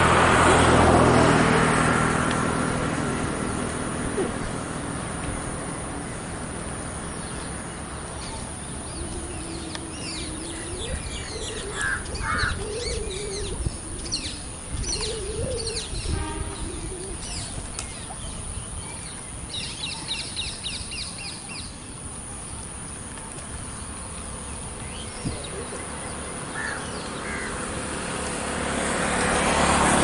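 Lakeside ambience: birds chirping and calling over a steady rush of wind and water, with a quick run of repeated high notes about two-thirds of the way in. A louder rushing noise with a low hum swells at the start and again near the end.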